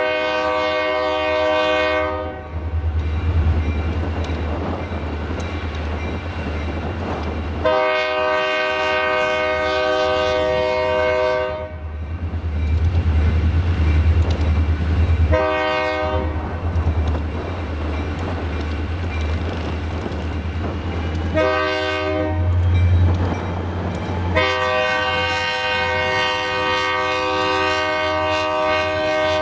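Diesel freight locomotive's multi-chime air horn sounding for a grade crossing as the train approaches: two long blasts, two short ones, then a long blast still held at the end. A steady low rumble runs under the horn throughout.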